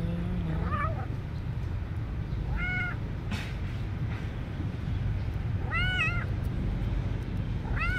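Kitten meowing: short high-pitched mews, three or four times a couple of seconds apart, over steady low background noise.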